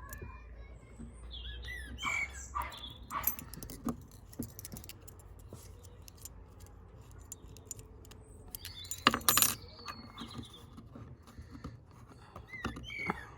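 A padlock and its keys being handled: scattered metallic clicks, clinks and rattles, with a louder clatter about nine seconds in.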